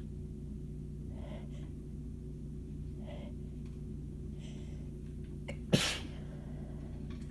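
A woman's sneezing fit: three faint gasping breaths build up, then one short, sharp sneeze comes a little before the end.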